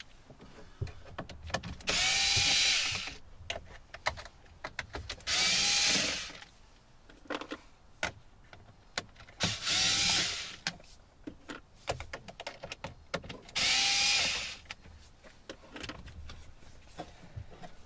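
Cordless electric screwdriver backing out four Phillips head screws, four short motor whirs of about a second each, a few seconds apart, with small clicks of handling between them.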